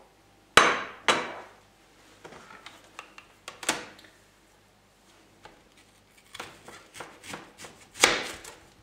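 Kitchen items knocking and clattering as a bowl is moved and a plastic cutting board is set down on a glass-ceramic hob, then a knife cutting into a peeled onion on the board. The sharp knocks come about half a second in, again about a second in, around three and a half seconds in, and near the end.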